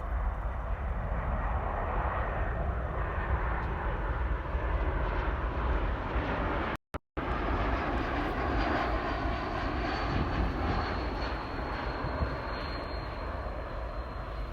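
Jet airliner on approach flying past: a steady engine roar with a faint high whine that slowly falls in pitch in the second half. The sound drops out briefly about halfway through.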